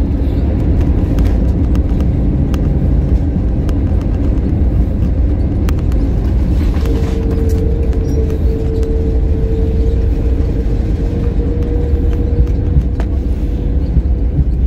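Airliner cabin noise as the plane rolls on the ground after landing: a loud, steady low rumble of the wheels and engines. A steady whine joins about seven seconds in and holds nearly to the end.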